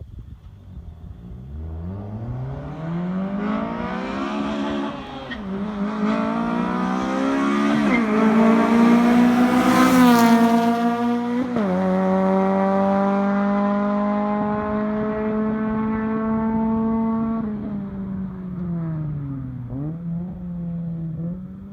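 2008 Honda Civic Si's K20Z3 2.0-litre four-cylinder i-VTEC engine and exhaust pulling hard. The pitch climbs steadily to a high-rpm peak, loudest about ten seconds in. It then drops suddenly, holds high revs steadily for several seconds, falls as the throttle eases off near the end and rises again briefly.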